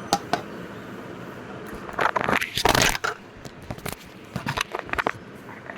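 Plastic mixer-grinder jar and lid being handled: a few sharp clicks, a loud scraping, crunching rub about two seconds in, then scattered clicks and knocks.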